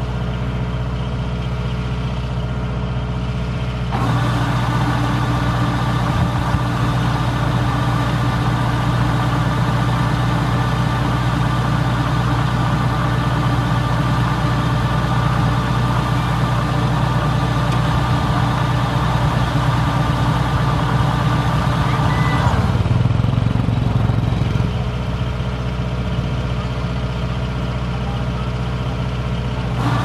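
Diesel engine of a Kubota combine harvester running steadily. About four seconds in it gets louder and a higher steady hum joins the low engine note, and about three-quarters of the way through it drops back to the lower, quieter running.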